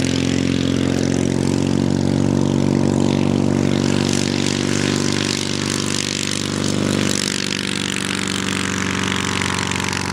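Belite UltraCub ultralight's half-VW two-cylinder four-stroke engine and propeller running at high power on the takeoff roll, a steady drone.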